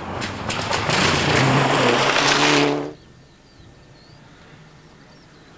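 Rally car racing past on a gravel stage, its engine at high revs with gravel spraying, loud for about three seconds. It then cuts off abruptly, leaving only quiet outdoor background.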